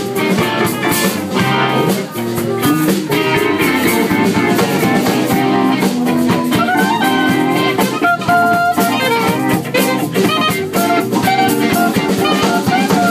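Live band playing loud, with electric guitar over a drum kit.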